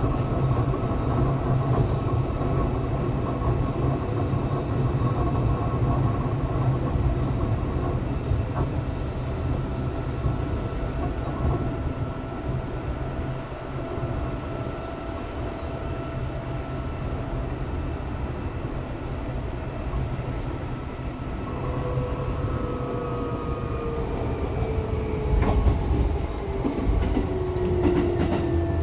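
Seibu 2000 series electric train running: a steady rumble of wheels on rails with a few clicks of rail joints. A whine falls in pitch over the last several seconds as the train slows.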